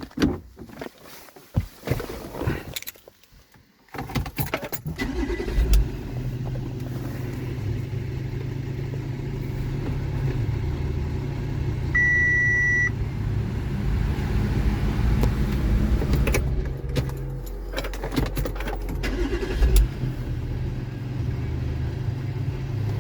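A few clicks and knocks, then an Audi engine starts about four seconds in and settles into a steady idle. A single beep sounds for about a second around the middle. The engine starting is the sign that the BCM2 immobiliser fault is cleared and the car now cranks and starts.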